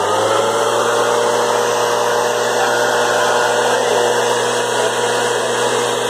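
Two-stroke gas-powered backpack leaf blower running loud and steady, its engine pitch holding constant.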